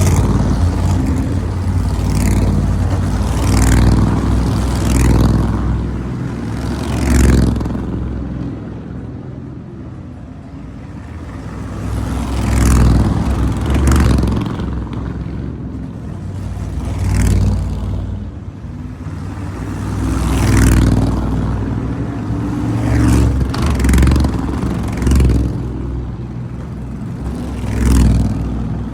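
V8 race car engines at racing speed, one car after another passing close by, each swelling loud and fading away. There are about a dozen passes, some in quick pairs, with a steady engine drone between them.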